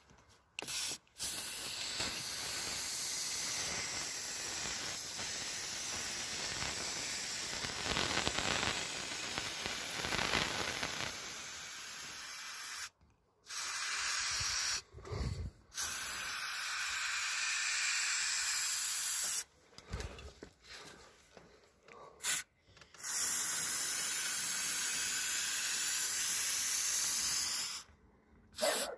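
Aerosol silicone lubricant spraying from a can into a car door's window channels: a steady hiss in about five bursts, the first about eleven seconds long, the rest a few seconds each with short pauses between.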